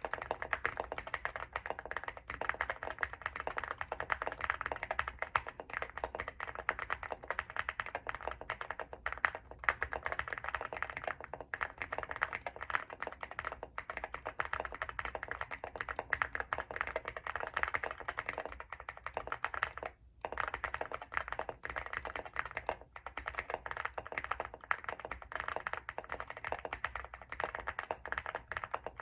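Fast continuous typing on a Leobog Hi75 mechanical keyboard with stock linear WS Morandi switches, all stock foams and PBT MDA-profile keycaps. There are brief pauses, the longest about 20 seconds in.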